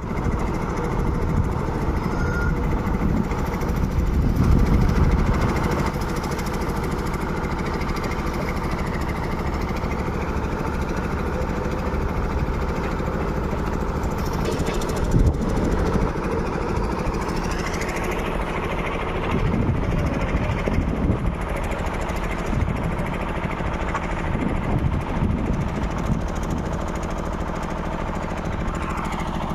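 A motor-driven machine running steadily with a rapid, even beat, such as a small engine, with a sharp knock about halfway through.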